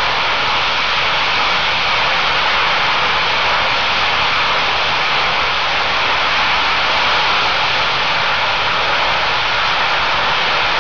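Uncontrolled well blowout on a drilling rig: well gas escaping under pressure and burning, a loud, steady hissing rush like a jet engine.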